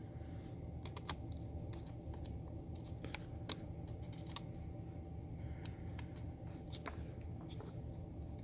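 Faint scattered clicks and taps as an M.2 SSD card is worked into its slot on a laptop motherboard, over a steady low hum.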